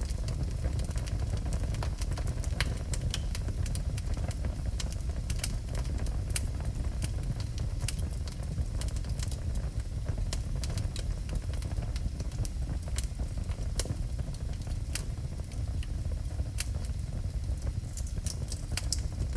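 Wood fire burning in a fireplace: a steady low rumble of the flames with frequent sharp crackles and pops at uneven intervals.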